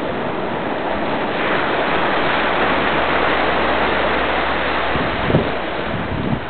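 Sea surf washing in over a rocky shore: a steady rush that swells through the middle. Near the end a few short low bumps of wind on the microphone.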